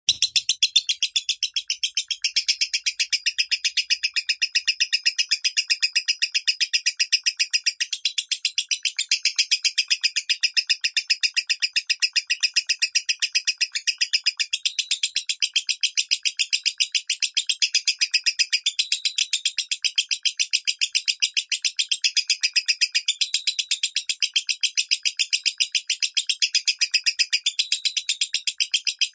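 Lovebird singing in the 'minor' voice style: a rapid, unbroken stream of short, high chirps that starts suddenly.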